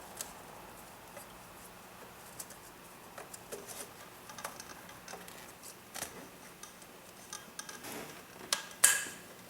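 Hand work on the car's engine parts: scattered light clicks and taps, with two sharper clicks near the end.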